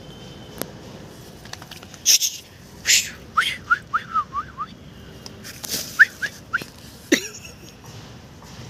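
Dog whining in quick runs of short high-pitched whimpers, mixed with sharp sniffing puffs as it noses into leafy plants searching for a snake.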